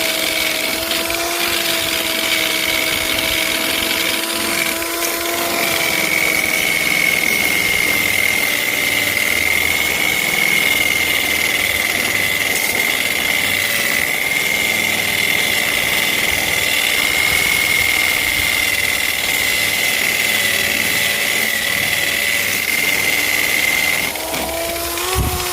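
Old Craftsman 3/8-inch electric tool fitted with a grinding wheel, running steadily with a high whine while it grinds rust off a steel anchor. Its tone changes about five seconds in, and it stops near the end.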